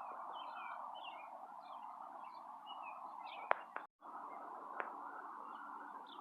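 Birds chirping over a steady background hiss, with a couple of sharp clicks about three and a half seconds in and the sound cutting out for an instant just after.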